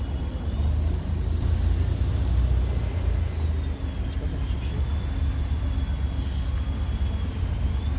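Steady low rumble of a pickup truck's engine and tyres heard from inside the cab while it drives slowly.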